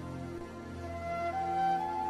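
Background music: a soft melody of long held notes stepping upward over a sustained low drone.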